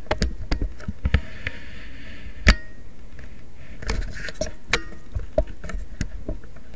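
Handling noise as the recording camera is moved and repositioned: irregular clicks and taps with brief rubbing, the sharpest tap about two and a half seconds in.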